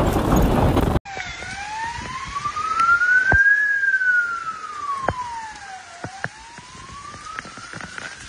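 An emergency vehicle siren wails in slow sweeps, its pitch climbing for about two and a half seconds and falling again, over a steady hiss of heavy rain with scattered clicks. About a second of loud storm noise comes first and cuts off abruptly.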